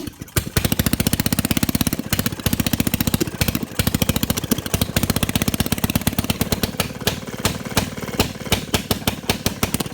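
Antique Maytag washing-machine two-stroke gasoline engine running as a rapid, even train of exhaust pops, several a second, with brief dropouts just after the start and again between three and four seconds in. It is hit-and-miss running, which the owner puts down to the setting of the coil and points.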